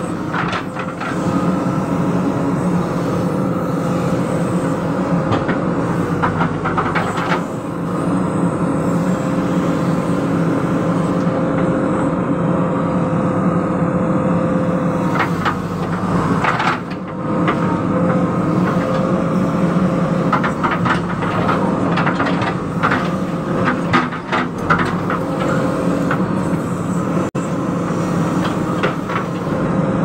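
JCB backhoe loader's diesel engine running steadily as the digging arm works, heard from the operator's cab, with scattered knocks and clatter, several in clusters.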